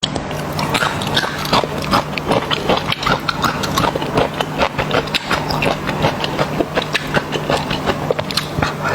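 Close-miked eating: chewing and wet mouth smacks, many irregular clicks a second, over a steady low hum.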